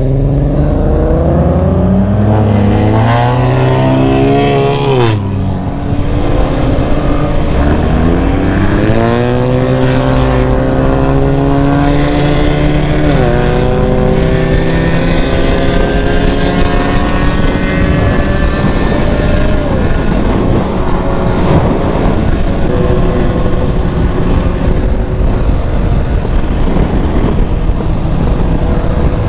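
Kawasaki Ninja ZX-10R sport bike's inline-four engine accelerating hard through the gears: the pitch climbs steeply and drops at an upshift about five seconds in, climbs again to another shift near thirteen seconds, then holds a steady cruising pitch under wind rush.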